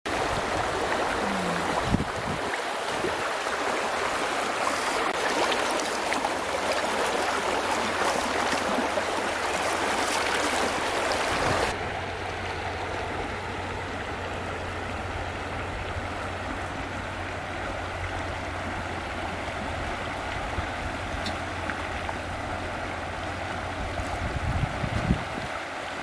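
Shallow river water rushing over rocks and small rapids. Past the middle it drops suddenly to a quieter, steadier flow with a low hum underneath, and there are a few low thumps near the end.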